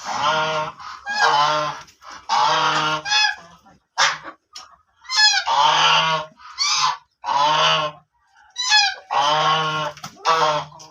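Black ducks calling loudly: a series of about ten harsh, nasal quacks in quick succession with short pauses between them.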